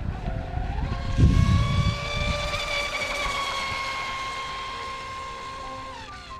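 Electric motor whine of an RC F1 catamaran powerboat with a 3674 2200kv brushless motor running at speed. The pitch rises about a second in, holds high and steady, then falls away near the end as the boat slows. Wind gusts on the microphone in the first couple of seconds.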